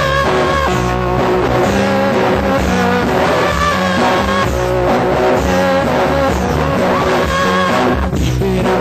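Lo-fi post-punk rock song playing steadily, with guitar and bass over a driving beat and a sung vocal in the mix.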